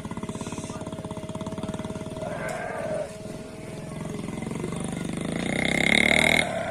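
Flock of sheep and goats bleating as it moves past, with a short bleat about two seconds in and a loud, long bleat near the end, over a small engine running steadily.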